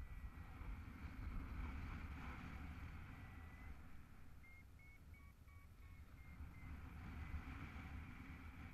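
Wind rushing over the camera microphone of a paraglider in flight: a steady low rumble. A thin high tone sounds for the first few seconds, and a run of short, faint high beeps comes about halfway through.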